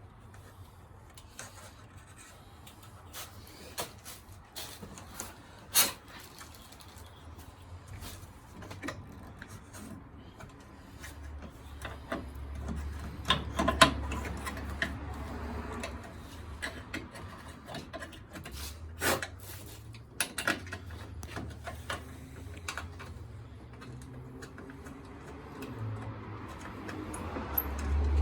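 Handling noises from work on the horn wiring: scattered clicks and taps with rubbing, and a low rumble in the middle.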